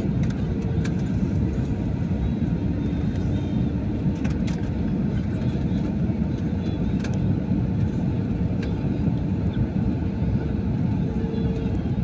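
Steady cabin noise of an Airbus A320-family airliner on descent: the low rumble of the engines and rushing air heard from inside the cabin by the window, with a few faint clicks.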